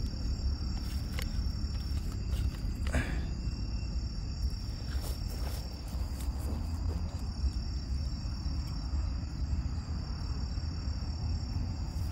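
Crickets trilling steadily at one high pitch, over a low rumble. There is a brief rustle of handling about three seconds in.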